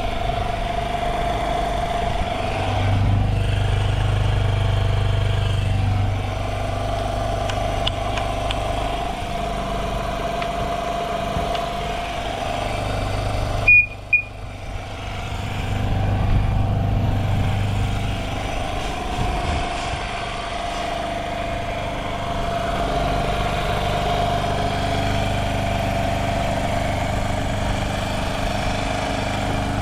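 Honda Ape 50's carbureted single-cylinder four-stroke engine running at idle, its speed swelling and easing slightly a few times, with no abnormal noise. A short sharp knock with a brief high tone about halfway through.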